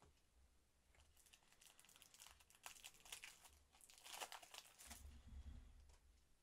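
Foil wrapper of a Match Attax trading-card pack crinkling as it is torn open by hand. The crackling starts about a second in and is loudest near the end. A soft low bump follows as the cards are handled.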